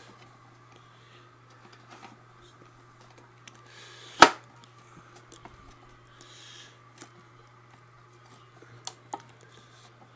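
Parts of a Hoover Convertible upright vacuum being handled during reassembly: small clicks and taps, with one sharp knock about four seconds in. A steady low hum runs underneath.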